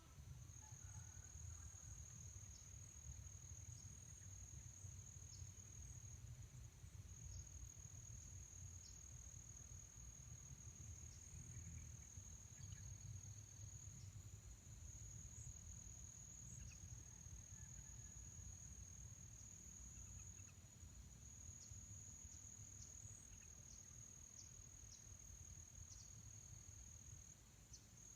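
Faint, steady high-pitched insect trill running without a break, over a low rumble.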